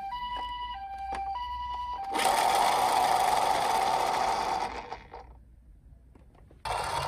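Toy ambulance's electronic two-tone 'pee-poh' siren, two tones alternating about every half second. About two seconds in it gives way to a loud, steady whirring, rolling noise for some three seconds as the toy car runs. The noise fades to near quiet, then starts again near the end.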